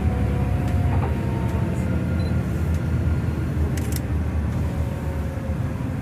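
Bus running along a mountain road, heard from inside the cabin: a steady low engine and road rumble with a faint whine slowly falling in pitch, and a couple of light rattles.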